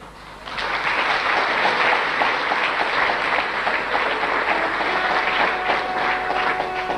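Audience applauding, starting about half a second in. Faint held musical notes come in under the clapping in the second half.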